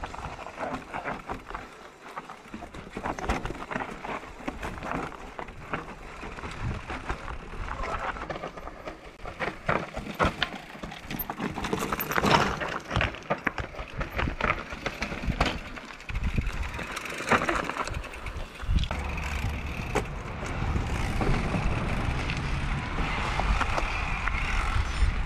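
Electric mountain bike riding over a rough dirt track: tyres crunching and the bike rattling and knocking over bumps, with wind rumbling on the microphone, stronger in the last few seconds.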